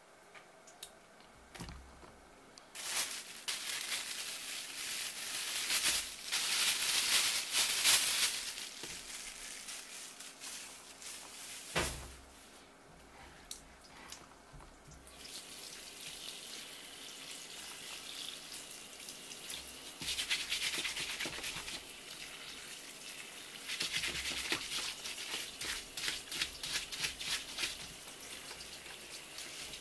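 Kitchen tap water running from a flexible hose onto a live blue swimming crab on a wooden cutting board, splashing as the crab is turned and rinsed under it. It starts about three seconds in after a few light taps. There is a single knock about twelve seconds in, and louder stretches of splashing near the end.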